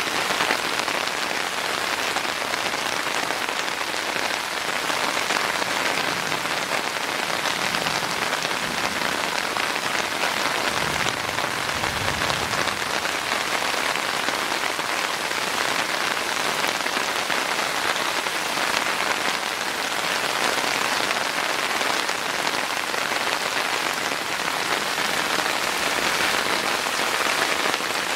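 Heavy rain falling steadily, a constant even hiss that neither builds nor lets up.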